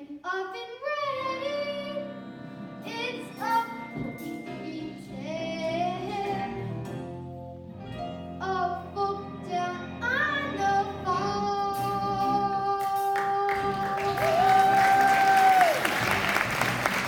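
Children singing a musical-theatre song with instrumental accompaniment, ending on a long held note. Audience applause breaks out near the end.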